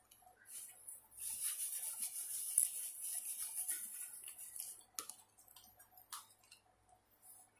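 Paper napkin rustling and crinkling for about three and a half seconds as fingers are wiped clean, followed by a few sharp mouth clicks from chewing.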